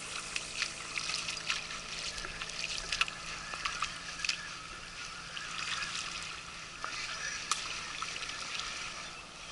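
River water lapping at the shore, a steady trickling hiss broken by many small irregular splashes and clicks.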